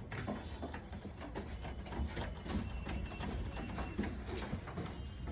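Rapid, irregular small clicks and light knocks of computer parts and cables being handled and fitted during a desktop PC assembly, over a steady low hum.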